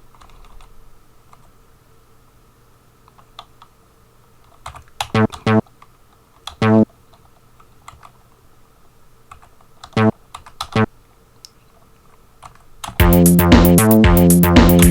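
Computer keyboard typing as notes are entered into a tracker, with short single bass notes sounding at some keypresses a few times through the middle. Near the end the pattern plays back loudly: an Amiga soundtracker bass sample line over a programmed drum beat.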